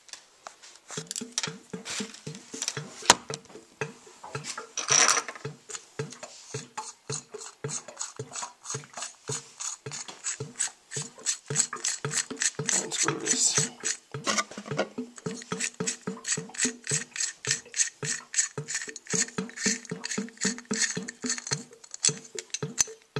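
Plastic nut being spun by hand along the threaded metal shank of a sink soap dispenser, giving a rapid run of ratchet-like clicks, several a second.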